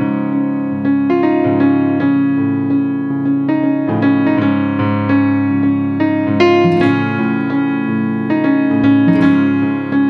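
Background piano music: notes struck about once or twice a second over held low chords.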